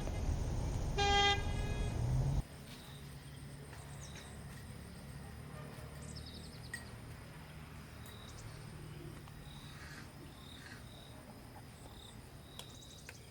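A vehicle horn gives one short toot over loud road-traffic noise. About two seconds in, the traffic noise cuts off abruptly, leaving a quiet outdoor background with faint scattered high chirps.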